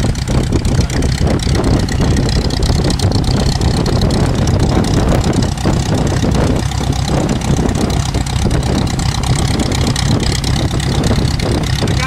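Aeronca L-3's small four-cylinder Continental engine idling steadily.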